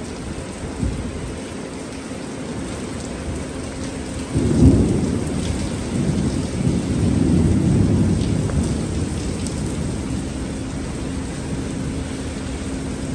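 Heavy rain falling steadily on a parking lot, with a long roll of thunder that starts suddenly about four seconds in, rumbles for several seconds and fades away.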